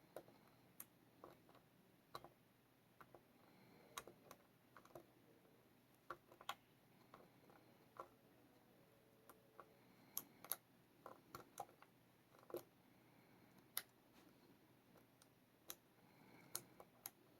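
Faint, irregular clicks and ticks of a lock pick and tension wrench working the pins of a small four-pin Yale pin-tumbler lock.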